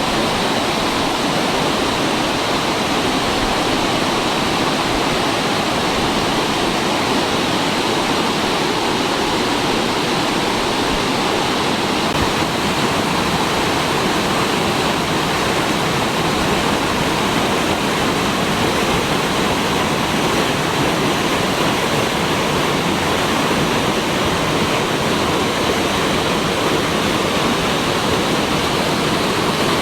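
Waterfall rushing: a loud, steady wash of falling water that does not change.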